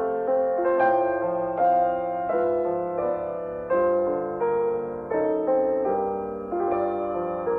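Background music: a gentle piano melody with chords, a new note struck every half second to a second and each one fading away.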